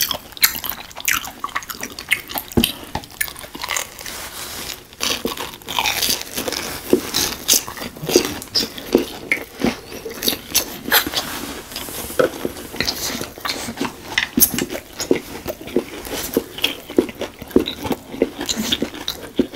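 Close-up eating sounds of deep-fried Korean corn dogs (Myungrang hot dogs): irregular crisp crunches of the fried batter as it is bitten, and chewing.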